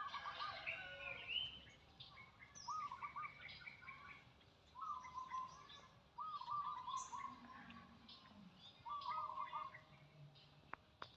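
Small birds chirping and singing, one repeating a short warbled phrase every few seconds among scattered higher chirps.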